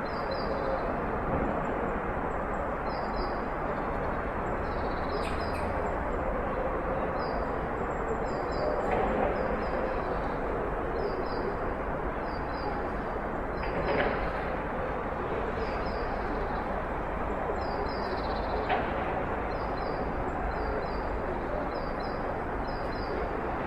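City backyard ambience: a steady hum of distant city traffic, with a small bird chirping in short runs of two or three high notes every second or two. A few faint knocks are heard, the most distinct about fourteen seconds in.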